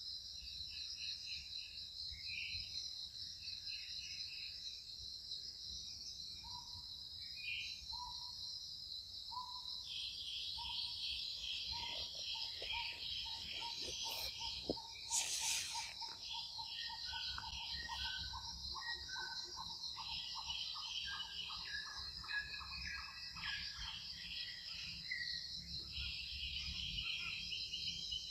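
Steady high-pitched chorus of insects in the forest, with birds calling over it in short broken phrases and, midway, a run of quick evenly repeated notes. A brief loud burst of noise stands out about halfway.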